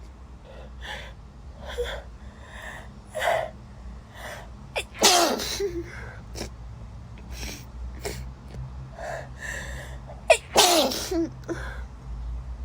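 A woman sneezing over and over in a fit. Two loud, full sneezes come about five seconds in and again near ten seconds, with shorter breathy gasps and small sneezes between them.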